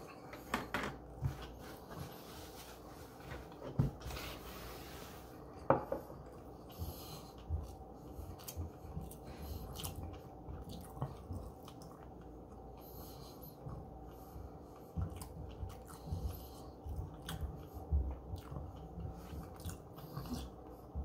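A person chewing a mouthful of sushi: small irregular mouth clicks and soft smacks, with a few sharper clicks in the first six seconds.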